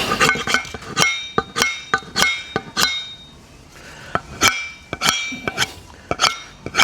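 Repeated blows on a slasher's steel blade and handle socket, each strike ringing like struck metal: about seven quick blows, a short pause, then about six more, as the fitted wooden handle is knocked to get it back out.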